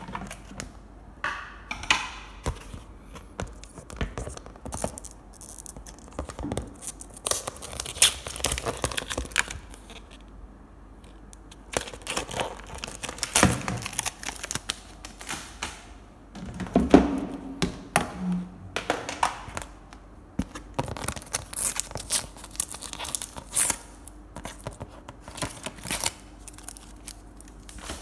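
Adhesive paper labels being peeled off clear polypropylene Samla storage boxes, with paper tearing and crinkling, amid irregular clicks and knocks of the plastic boxes being handled, and one duller thump near the middle.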